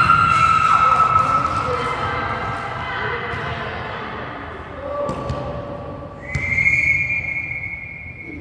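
Women's voices cheering and calling out on a volleyball court, with long drawn-out shouts: one held call at the start that fades over the first couple of seconds, and another held high call starting about two-thirds of the way in.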